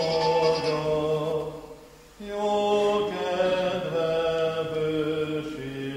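Church congregation singing a hymn in slow, long-held notes, breaking off briefly about two seconds in before the next line starts.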